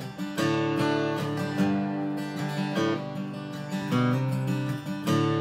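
Steel-string acoustic guitar strumming chords on its own, with a few chord changes, as hymn accompaniment between sung verses.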